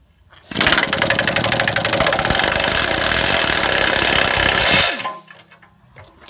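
Air impact wrench hammering on a carriage bolt's nut, drawing the bolt head down tight. It starts about half a second in, runs steadily for about four seconds and stops abruptly.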